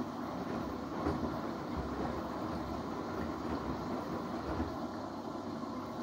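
Samsung Eco Bubble front-loading washing machine tumbling a wet load of bedding during the first rinse: a steady rumble of the turning drum and sloshing water, with a few dull thumps.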